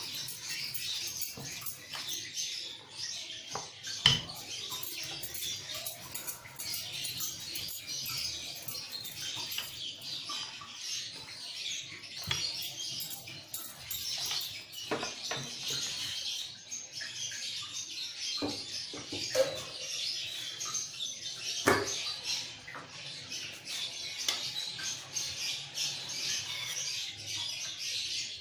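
Wooden rolling pin rolling out paratha dough on a wooden board, with a couple of sharp knocks of wood on wood. Birds chirp steadily in the background.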